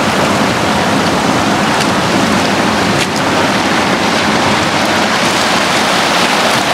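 Ocean surf washing over shoreline rocks: a steady, loud rush of churning water.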